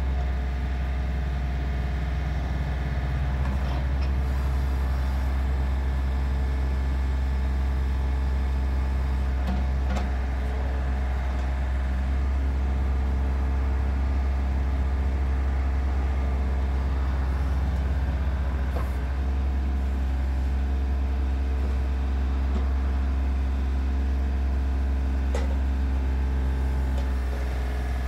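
Yanmar YB251-2-UZ mini excavator's three-cylinder diesel engine running steadily while the boom and bucket are worked hydraulically, with a few light clicks.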